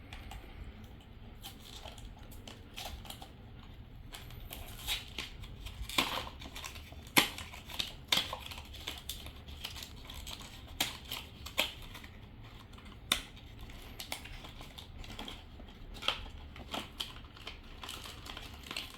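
A small cardboard blind box and its plastic packaging being opened by hand: irregular crinkling and tearing, with scattered sharp clicks and taps.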